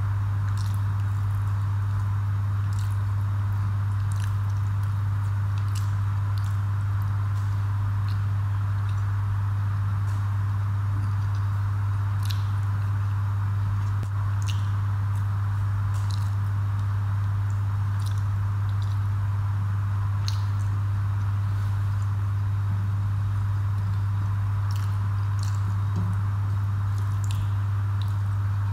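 A person chewing a mouthful of rice and fish curry, with scattered short, wet mouth clicks every second or two. A steady low hum runs underneath and is the loudest thing throughout.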